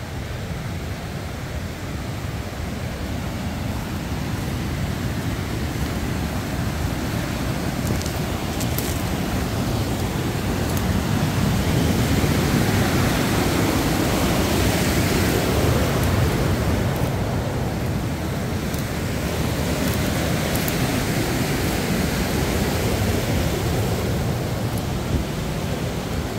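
Wind rushing and buffeting on the microphone in an even, rumbling noise that swells to its loudest in the middle and then eases off.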